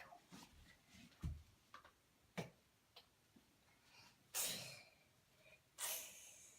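Scattered light clicks and knocks of plastic toy vehicles being handled, with two short, louder hissing noises about four and six seconds in.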